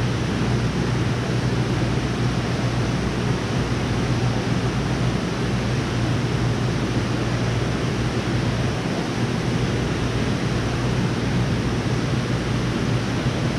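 Steady rushing of running water with a constant low hum underneath.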